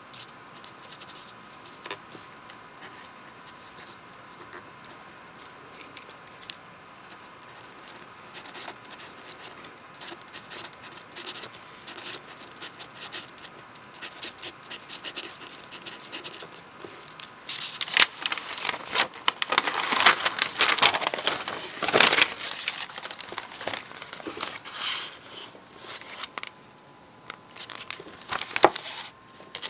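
Ballpoint-style pen writing on lined notebook paper, faint light scratches and ticks. About two-thirds in, louder rustling of notebook pages being handled and turned takes over, with a last burst near the end.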